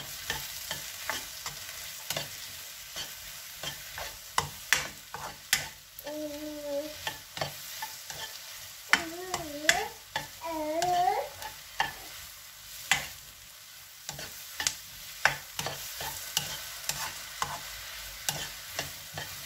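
Sliced mushrooms with onion and garlic frying and sizzling in a nonstick wok while a plastic spatula stirs and scrapes them. The spatula knocks against the pan in frequent, irregular sharp clicks over a steady sizzle.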